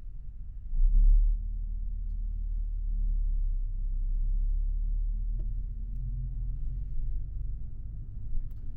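Low engine and road rumble of a highway coach in motion, heard from inside the passenger cabin. It swells briefly about a second in, then settles into a steady drone with a faint hum.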